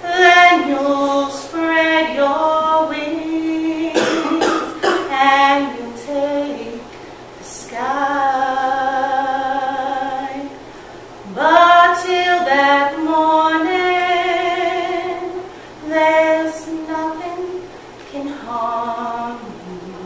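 A woman singing solo and unaccompanied, holding slow, sustained notes in phrases broken by short pauses.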